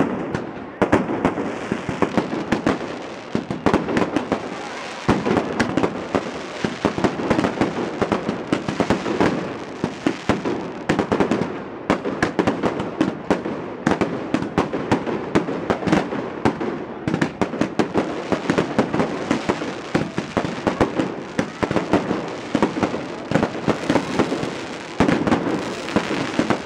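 Firecrackers and fireworks going off during the burning of a falla monument: a continuous, irregular barrage of sharp bangs and crackles, many a second.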